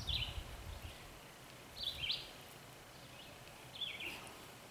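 A bird repeating a short, high chirped call about every two seconds, three times, over faint outdoor background noise.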